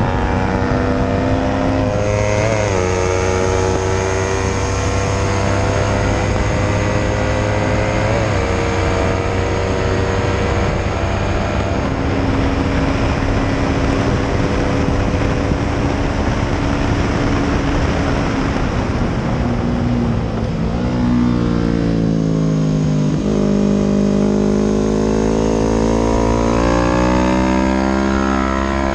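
Honda CBR250RR engine running hard at high revs on a race track, with two brief dips in pitch early on. About two-thirds through the revs fall, then climb again through the gears and drop once more near the end.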